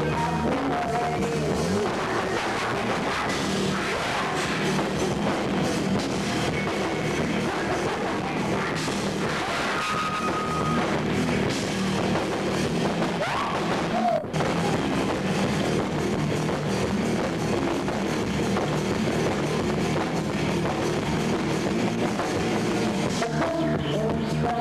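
A rock band playing live on electric guitar, bass guitar and drum kit, with a brief dropout in the sound about fourteen seconds in.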